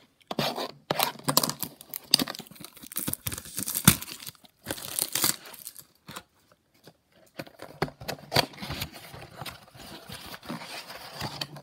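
Packaging of a 2021 Bowman baseball-card blaster box being torn open and crinkled: irregular tearing and rustling, pausing for a second or so just past the middle.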